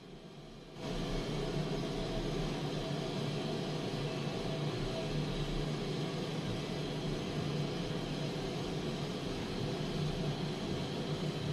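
A steady mechanical whirring hum with a low drone that starts abruptly about a second in and holds steady.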